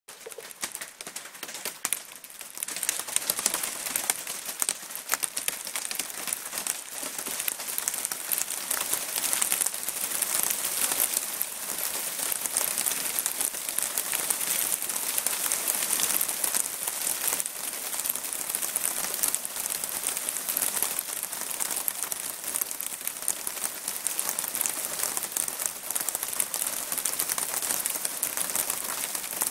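Hailstorm pelting a curved clay-tile roof: a dense, steady clatter of countless small hits. It grows fuller within the first few seconds, then keeps on evenly.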